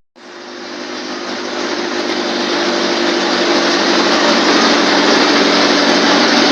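Mercedes-Benz OF1721 BlueTec 5 bus engine running, starting suddenly, growing louder over the first two seconds, then holding steady with a low hum under the noise.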